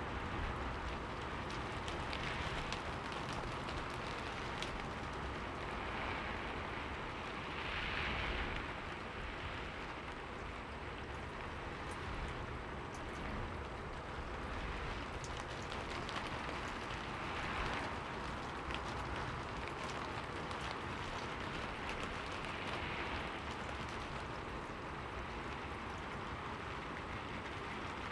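Steady rain falling on a window, with fine scattered drop ticks and gentle swells in intensity every few seconds.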